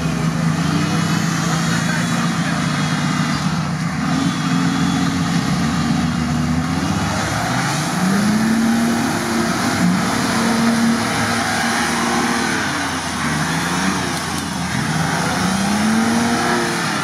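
Nissan Patrol off-roader's engine revving up and dropping back again and again as it pushes through deep mud and water, under load with its wheels churning in the mud.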